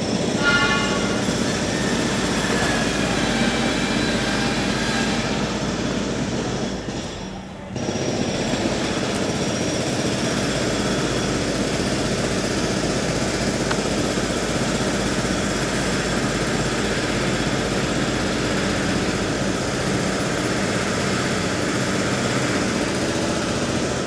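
Electric commuter train running along the line beside the road, a steady rumble with a brief high whine of several tones in the first second. The sound dips briefly about seven and a half seconds in, then carries on evenly.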